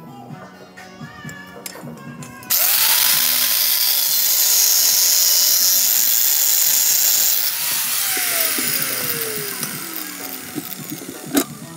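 Small angle grinder starts about two and a half seconds in and runs against a steel rod for about five seconds, its motor pitch wavering under load. It is then switched off and winds down with a falling whine. A single sharp knock comes near the end.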